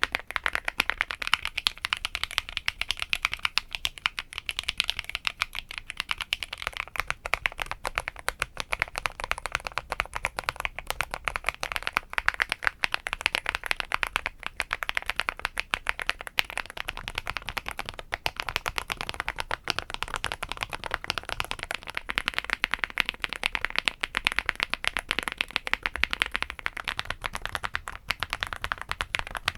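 Fast, continuous typing on a mechanical keyboard with Haimu Sea Salt switches, a dense stream of key clicks. The tone of the keystrokes shifts slightly a few times as the keyboard plate changes: PC, then POM/PP, then FR4.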